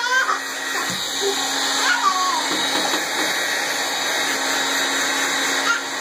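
Hair dryer blowing steadily with a constant motor hum, and a toddler's short high squeals over it near the start and about two seconds in.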